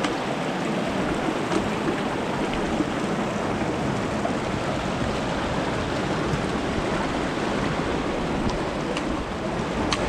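Shallow stream running over rocks, a steady wash of water noise, with a few light clicks.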